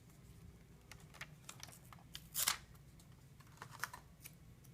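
Light clicks and taps of small tools and phone parts being handled at a repair bench, with one short scratchy rustle about two and a half seconds in, over a low steady hum.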